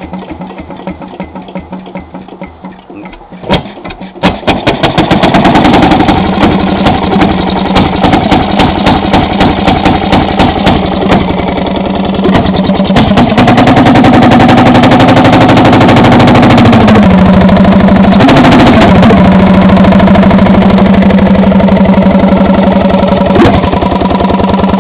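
Fairmont railroad engine being turned over, then firing about four seconds in and catching. It runs fast and loud with rapid, even firing beats.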